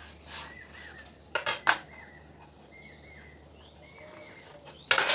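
A few sharp clacks of hard objects being handled: two about a second and a half in and a louder cluster near the end. Faint bird chirps in the background between them.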